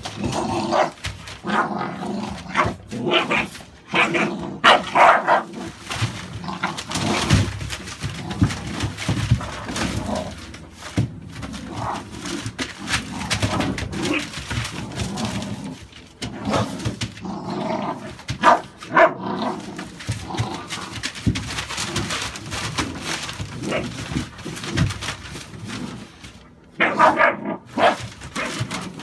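American Staffordshire Bully puppies play-fighting: short barks and growls again and again, over a steady rustling.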